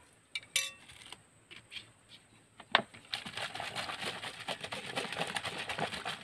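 Clicks of a plastic bottle cap being screwed on, with one sharp crack near the middle, then from about three seconds in a plastic bottle of liquid shaken hard, sloshing with a fast crackle of the plastic.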